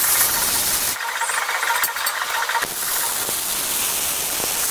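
Wire-feed welder arc crackling and hissing steadily as a steel tab is welded onto a steel tube beam, the texture of the crackle changing a couple of times.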